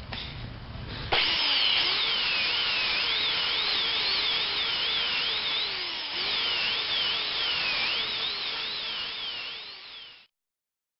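An electric power tool's motor starts about a second in and runs with its pitch wavering up and down over and over as the load changes, over a steady hiss of sanding on a spinning glass bottle. It cuts off suddenly near the end.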